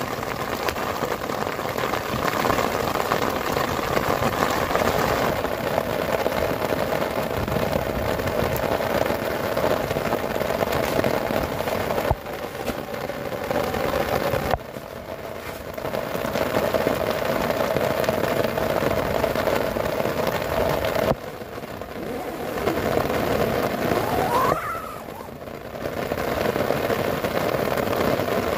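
Heavy rain beating on the tent's fabric, a dense steady patter that dips briefly several times.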